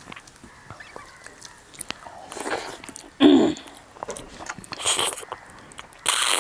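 Close-miked eating sounds from rice mixed with stinging nettle curry, eaten by hand: chewing and small wet mouth clicks throughout, with three louder wet slurping mouth noises about three, five and six seconds in.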